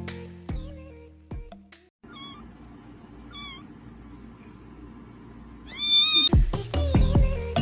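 A cat meowing three times: two short meows and then a longer, louder one. Background music plays before and after the meows.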